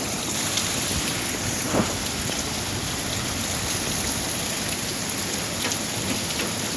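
Steady rain falling and hitting surfaces, a continuous hiss with scattered sharper drop hits.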